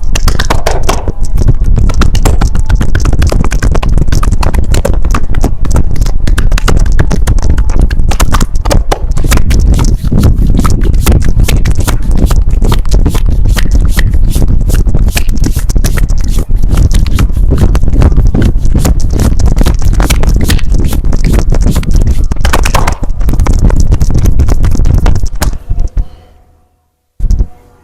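Rapid, loud percussive massage: hands slapping and chopping on a back in quick, uneven succession, stopping near the end.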